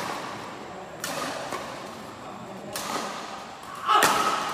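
Badminton rackets striking a shuttlecock during a rally, three sharp cracks about a second in, near three seconds and, loudest, about four seconds in, each echoing in a large hall.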